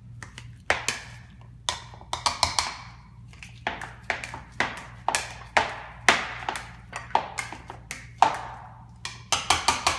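Wire potato masher mashing bananas in a bowl: a run of irregular knocks and clacks as the masher strikes the bottom of the bowl, often in quick clusters of two to four.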